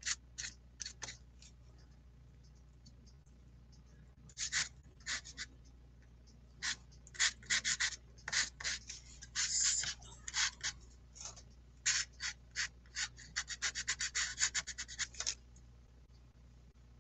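Soft pastel stick scratching across paper in short strokes, with a pause of a few seconds near the start and a quick run of strokes toward the end.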